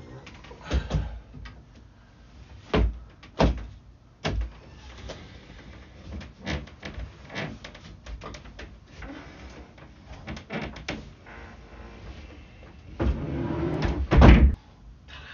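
A Murphy bed being folded up into its wall cabinet: knocks and clunks from the metal frame and panels, smaller clicks and rattles as it is pushed upright, then a louder rattle ending in a hard knock as it shuts into the cabinet near the end.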